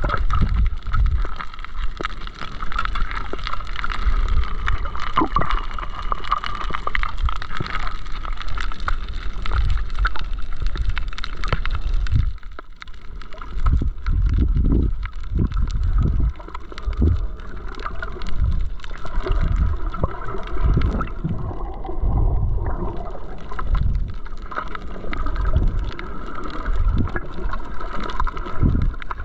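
Underwater sound from a snorkeler's submerged camera: water gurgling and sloshing with irregular low, muffled surges and a steady crackle of fine clicks.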